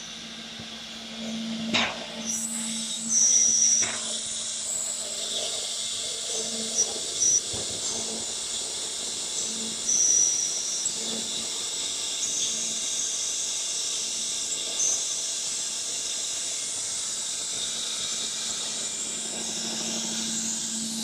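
Spindle of an AccTek AKM1325 4-axis CNC router running at high speed, a steady high whine and hiss over a low hum. There are brief louder squeals around two to four seconds, seven seconds and ten seconds in as the bit side-cuts the edge of a wooden board.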